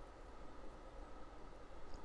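Quiet room tone with a faint steady hum and no distinct event.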